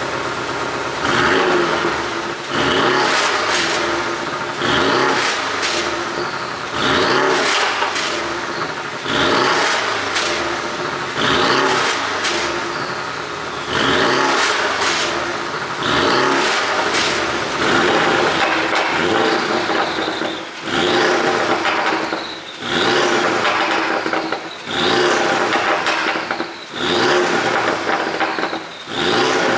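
The 2.5-litre turbocharged flat-four of a Porsche 718 Boxster GTS, exhaust flaps open, is revved at a standstill in short blips about every two seconds. After each blip, as the revs fall, it pops and crackles on the overrun from a tune written to make those pops.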